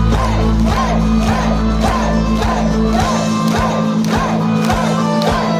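Folk metal band playing live: drums, bass and guitars under a repeating lead melody. A heavy low rumble drops away about halfway through.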